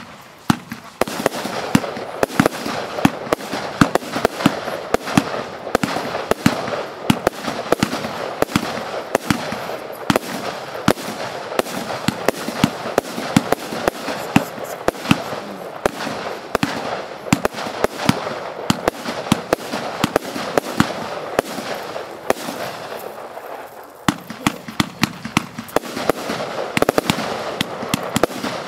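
Compound firework battery firing a rapid, continuous barrage of shots, several a second, with crackling between them. The barrage eases briefly about 23 seconds in, then picks up again.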